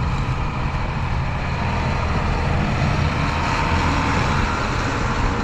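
Heavy diesel engine of farm machinery running steadily under load, a continuous low drone with a rushing noise over it.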